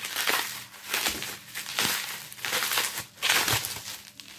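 Plastic bubble wrap crinkling in a string of bursts as it is pulled off a pump bottle by hand.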